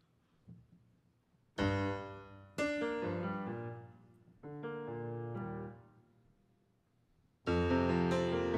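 Grand piano playing slow opening chords. After a quiet second and a half, a chord is struck, then another a second later, then a third around four and a half seconds in, each left to ring and fade. After a short pause, a louder chord comes near the end.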